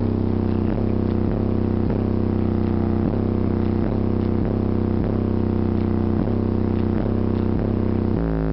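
Bass-heavy music played through a 12-inch Kicker L7 square subwoofer and a Memphis Mojo subwoofer in a car's trunk: deep sustained bass notes under a beat about every two-thirds of a second, the bass note shifting near the end.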